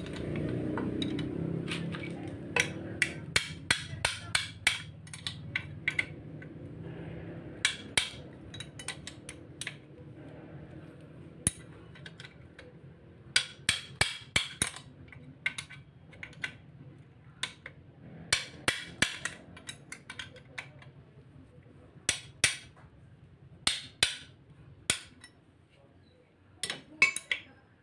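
Steel wrench clinking and knocking on the bolts of a Suzuki Multicab transmission casing as they are loosened, with a pipe extension on the wrench for leverage. The sharp metallic clicks come in quick clusters of several a second, repeated every few seconds. A low hum fades out over the first several seconds.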